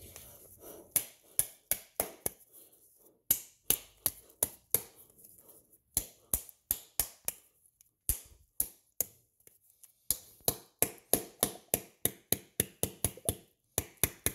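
Open Spam tin being knocked and smacked over and over, dozens of sharp metallic taps in uneven runs of about three a second with brief pauses, to shake the loosened loaf of meat out of the can.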